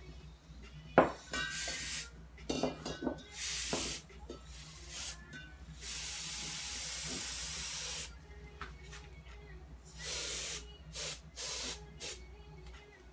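Can of compressed air sprayed through its thin red straw in short hissing blasts and one longer hiss of about two seconds, pushing wet alcohol ink across the canvas. A sharp knock about a second in, and a few light clicks.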